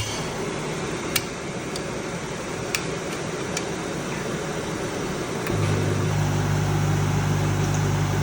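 Welding machine running with a steady fan-like whir and a few light clicks, then a loud steady low hum sets in about five and a half seconds in.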